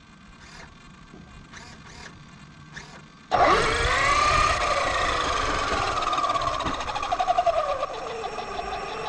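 A few faint ticks for about three seconds, then the Axial Yeti XL RC truck's brushless electric motor and drivetrain start with a sudden loud whine that slides down and up in pitch as the throttle changes.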